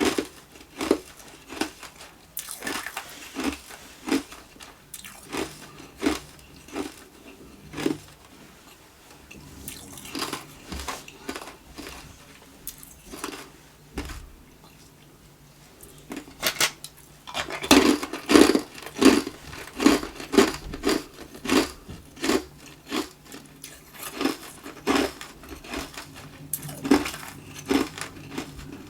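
A person biting and chewing hard tube ice, with crisp crunches coming about once a second. The crunching thins out for several seconds, then comes back denser and louder a little past halfway.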